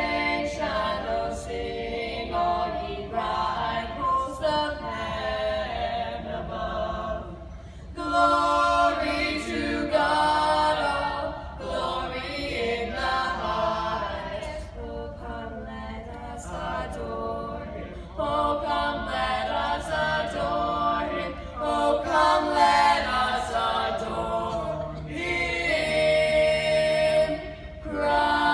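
Four boys singing a cappella in barbershop-quartet harmony, the voices moving together through sung phrases with brief breaks between them.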